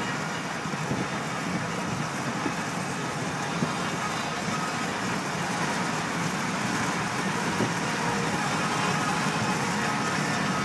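Steady road and engine noise of a moving car, heard inside its cabin.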